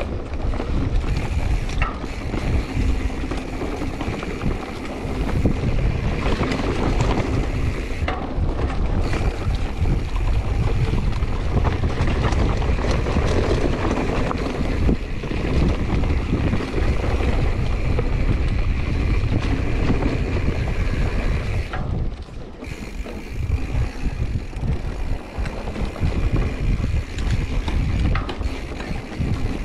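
Wind buffeting a helmet-mounted camera's microphone during a mountain bike descent, over the rumble of the 2021 Giant Trance X 29's tyres rolling on a dirt singletrack. The noise is steady, with a brief drop about two-thirds of the way through.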